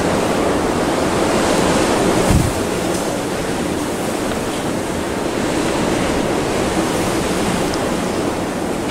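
Strong, gusty wind of a snow squall blowing with a steady rushing noise, partly wind on the microphone. A brief thump comes about two seconds in.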